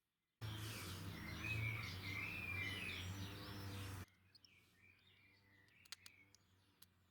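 Birds chirping over a steady low hum. The sound starts abruptly and drops suddenly to a much fainter level about four seconds in, with a few faint clicks near the end.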